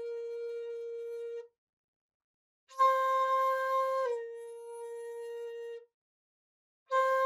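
Bamboo shakuhachi flute playing single held notes. One note ends about a second and a half in. After a pause a new note starts with a breathy attack, and about a second later it drops in pitch: it is bent down by meri, the lowering action, to the half-tone of ハ and held. A fresh note starts near the end.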